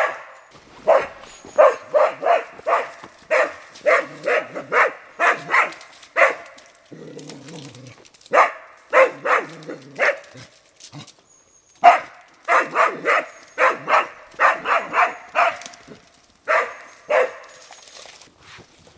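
Young springer spaniel barking at a wild boar in quick runs of about three barks a second, broken by short pauses: a boar dog's bay on the boar.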